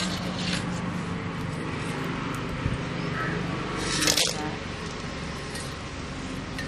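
Dried red chillies scraped with a steel knife into a dry steel kadai, a brief rustling scrape about four seconds in.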